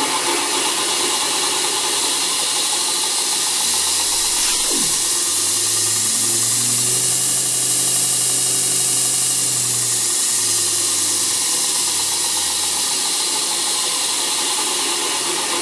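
Variable-speed knifemaking belt grinder (model 4.2) running free with a sanding belt: a steady whir and hiss of the belt over the motor's hum. The speed knob is being turned up, and the low hum shifts in pitch a couple of times.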